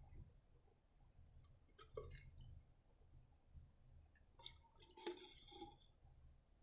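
Faint clicks and small liquid squelches as a syringe draws petrol from a plastic bottle, mostly about two seconds in and again around five seconds in, with a brief squeak among them.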